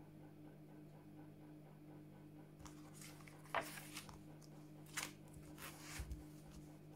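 A small hardback book being handled: pages rustling as they turn and the cover closing, a few short rustles and soft knocks starting about two and a half seconds in, the sharpest about a second later. A faint steady hum runs underneath.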